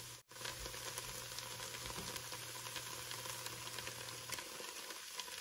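Chopped onions sizzling and crackling as they fry in hot oil in an enameled cast-iron pot. The sound cuts out for an instant near the start.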